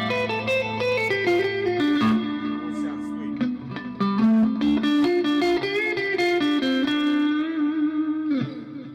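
Electric guitar fitted with GFS pickups played through an amplifier and picked up by a room microphone: a melodic line of single notes over held low notes, dying away shortly before the end.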